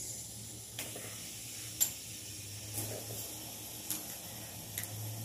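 Several fidget spinners spinning on a tile floor, giving a faint steady whirring hiss. Light clicks come about once a second as each spinner is flicked into spin and set down on the tiles.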